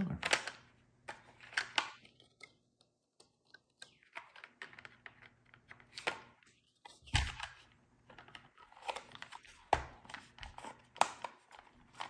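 Hard plastic shell pieces of a Dye LTR paintball hopper being handled and fitted back together: scattered clicks, taps and rubbing, with a few louder knocks.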